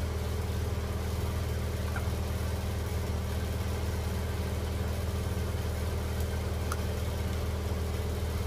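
Steady low mechanical hum with no change in pitch or level, a motor-like drone in the kitchen background; no stirring or utensil clinks.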